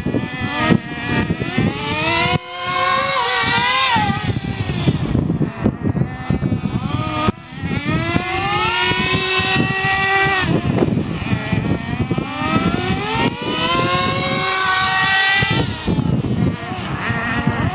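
Two nitro RC cars' small two-stroke glow engines running at high revs. The pitch repeatedly climbs as they accelerate and drops off when the throttle is let go, with brief dips about two and a half and seven seconds in.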